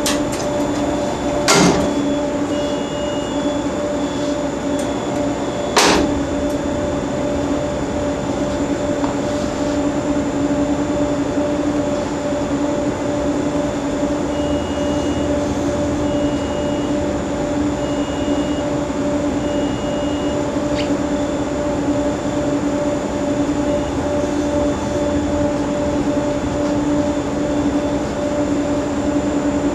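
Steady electrical hum of UPS and switchgear equipment, with two loud clunks about 1.5 and 6 seconds in as the transfer switch is operated to move the load onto the natural gas generator. Short high alarm beeps repeat at intervals over the hum.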